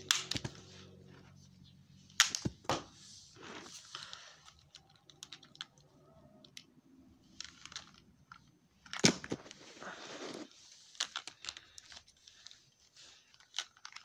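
Plastic wrestling action figures being handled and knocked together: a string of sharp clicks and clacks, two louder knocks among them, with soft rustling of hands and figures in between.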